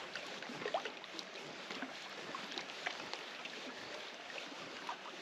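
Seawater lapping and gurgling at the shoreline: a steady wash with many small, irregular splashes and drips.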